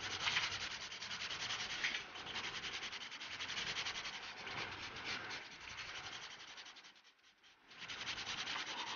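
Paintbrush scrubbing and stroking colour onto damp paper: a continuous scratchy rustle of quick strokes that breaks off briefly about seven seconds in, then resumes.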